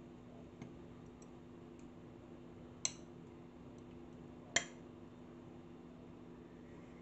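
Ice cubes in a tall glass clinking as cold brew coffee is poured over them: a light click early on, then two sharp clicks about three and four and a half seconds in, over a faint steady hum.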